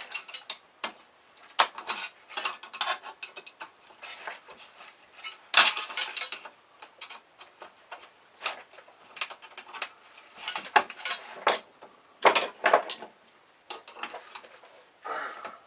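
Irregular clicking, clinking and clattering of small metal and plastic parts being handled and pried apart while an air conditioner's air-filter control panel is dismantled for scrap, with a few louder knocks about five and a half seconds in and again near twelve seconds.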